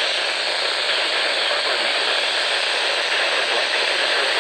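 Steady radio static from a weather radio receiver: an even hiss with no signal coming through.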